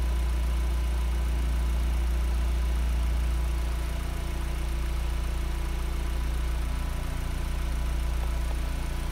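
Car engine idling steadily during a battery tester's charging-system load test.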